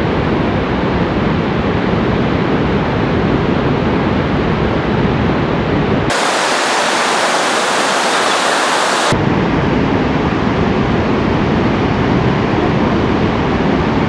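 Steady rush of white water from Barachukki Falls, a large waterfall on the Kaveri river, with a deep rumble under a hiss. For about three seconds in the middle the rumble drops away and only a brighter hiss is left, then the full rush returns.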